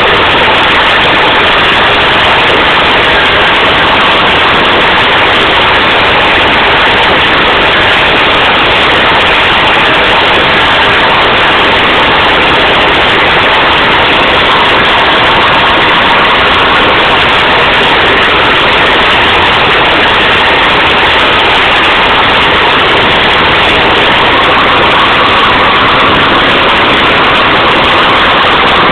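OT-64 SKOT armoured personnel carrier's Tatra V8 diesel engine running steadily under way, very loud, heard from on top of the hull through a phone's microphone.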